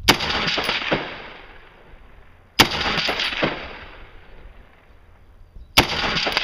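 Three rifle shots fired at a slow, deliberate pace about two and a half to three seconds apart. Each sharp crack is followed by about a second of rolling sound that fades away.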